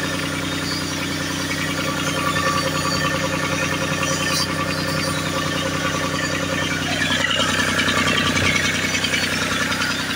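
Diesel engine of a Cat 302.5 mini excavator idling steadily, just after being started, a little louder in the second half.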